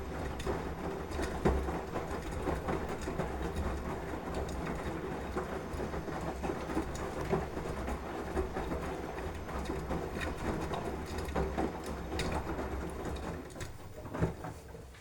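Washing machine running, its drum turning with a steady low rumble and a rattling clatter. The sound eases off near the end.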